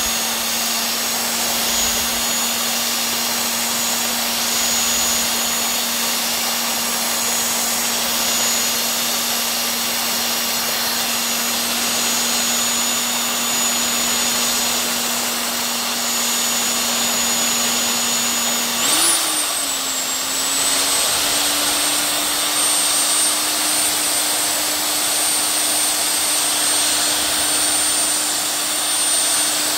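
Electric whisk with a single balloon-whisk attachment whipping eggs and sugar, its motor running with a steady hum over the whir and slosh of the frothy batter. About two-thirds of the way through, the hum jumps briefly and settles at a slightly higher pitch.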